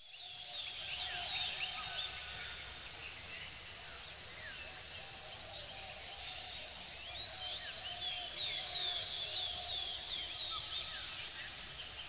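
Insects droning steadily in two high pitches, with many short bird chirps scattered over it. The sound fades in over the first second.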